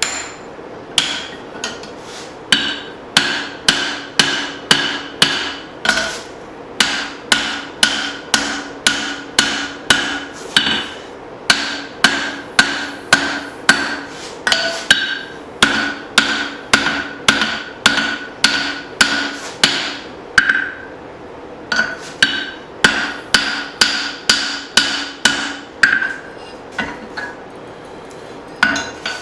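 Hand hammer striking a steel drift to open the eye of a hot hatchet head, a long steady run of sharp ringing metal-on-metal blows, about one and a half a second, pausing briefly a few times.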